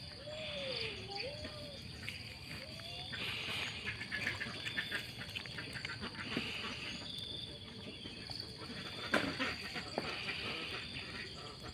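Insects trilling steadily at a high pitch, with scattered clicks and rustles and one sharp knock about nine seconds in; a low gliding call rises and falls in the first second and a half.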